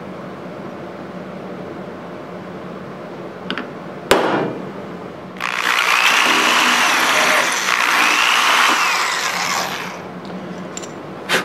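Cordless drill boring a hole through a small metal bracket held in a vise. It runs for about four and a half seconds, its motor pitch rising and falling twice, after a single sharp tap about four seconds in.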